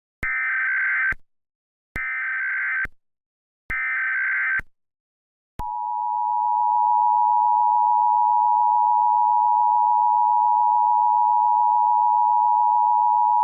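Emergency Alert System opening: three short bursts of SAME header data tones, about a second each, then the two-tone EAS attention signal, a steady tone held for about eight seconds that announces an alert.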